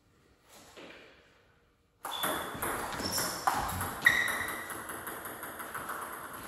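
Table tennis rally: a celluloid-type ball striking the paddles and the table, a run of sharp clicks roughly twice a second starting about two seconds in. One player's bat is faced with Dr. Neubauer ABS3 anti-spin rubber.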